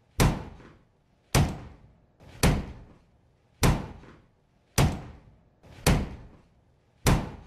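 A head banging repeatedly against a door, seven heavy thuds a little over a second apart, each with a short echoing tail.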